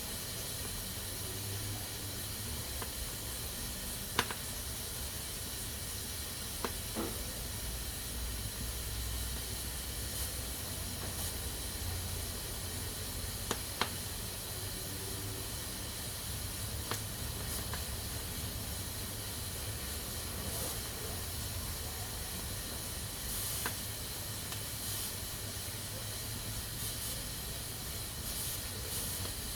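Pressure cooker hissing steadily as steam escapes from its valve under pressure, over a low rumble. A few sharp single clicks sound at scattered moments.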